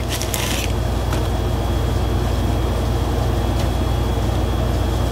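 Steady low mechanical hum with a faint high-pitched whine above it, from machinery running in the room. There is a brief rustle at the very start.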